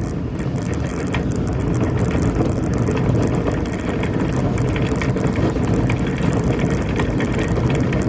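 Shopping cart being pushed over pavement, its wheels and frame giving a steady rattle.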